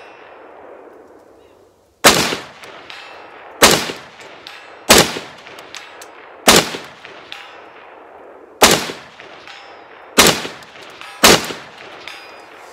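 Seven aimed single shots from a 7-inch-barrel 5.56 AR-15 short-barrelled rifle fitted with a Hancock Armory muzzle brake, fired about one every second and a half. Each shot is a sharp, super loud crack followed by a trailing echo.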